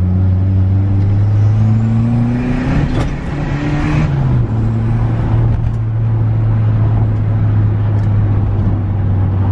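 Turbocharged third-generation Mitsubishi Eclipse heard from inside the cabin while driving. The engine note rises under acceleration for about two seconds, with a rush of noise, breaks about three seconds in, and falls back around four and a half seconds in. It then runs at a steady pitch for the rest.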